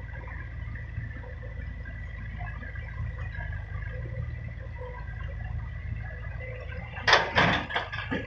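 Sumitomo mini excavator's diesel engine running steadily, with a burst of clanking and scraping about seven seconds in as the machine works.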